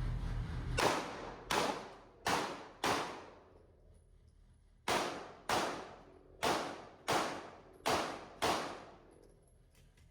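Ten pistol shots fired through a competition stage, spaced a little over half a second apart with a pause of about two seconds after the fourth; each shot rings out with a short echo.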